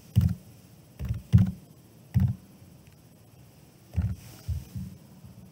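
Computer keyboard keystrokes: about eight separate taps at an uneven pace, each a dull knock.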